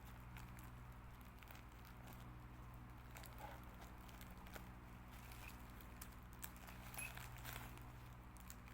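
Faint crinkling and scattered small clicks of a plastic bag being opened and handled, over a steady low electrical hum.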